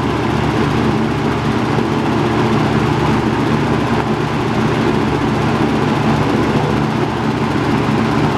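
Robeson model 2306 box fan running steadily on its medium speed: a constant rush of moving air over a low motor hum.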